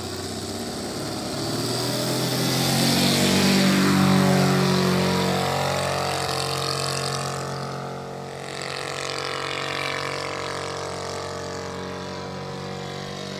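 Saito FG-84R3 three-cylinder radial four-stroke petrol engine of a 1/3-scale Piper J-3 Cub model plane running at takeoff power. It grows loud as the model takes off and climbs past, then drops in pitch as it goes by and settles to a steadier drone as it flies away.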